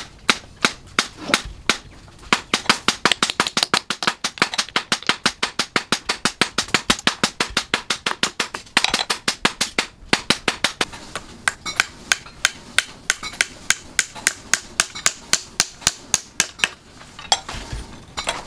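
Long run of light, ringing metal-on-metal taps on a steel anvil, about four to five a second, from small hand-held steel tools striking; the tapping thins out and stops shortly before the end.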